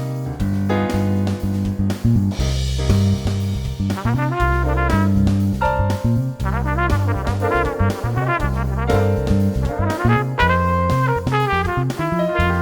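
Background music: upbeat jazz with brass instruments playing a melody over bass and drums.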